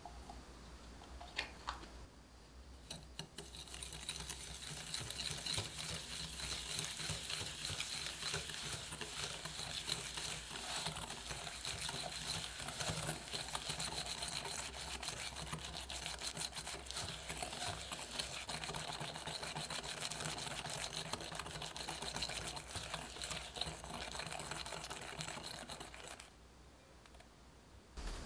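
Wire whisk beating egg yolk and sugar in a glass bowl: a fast, steady scraping and clicking of the wires against the glass. It starts a few seconds in and stops abruptly near the end.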